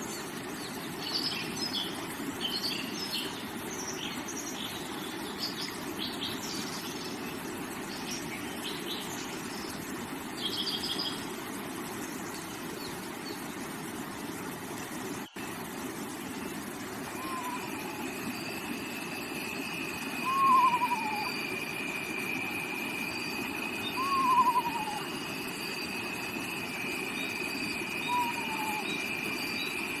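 Steady rushing of a shallow stream over rocks, with small birds chirping for the first ten seconds or so. After a brief dropout about halfway through, a high steady trill comes in, and a bird repeats a short falling call every three to four seconds.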